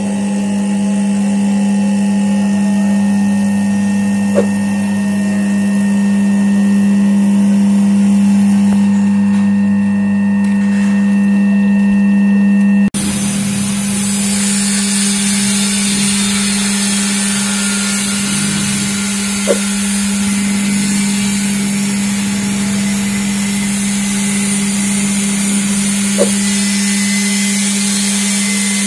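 Cashew-shell oil press machine running with a steady motor hum. The sound changes abruptly about 13 seconds in, turning hissier, and there are three brief clicks.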